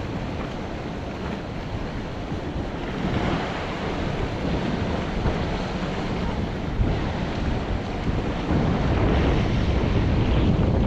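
Sea surf washing against a rocky shore, mixed with wind buffeting the microphone; a steady rushing noise that gets louder about eight seconds in.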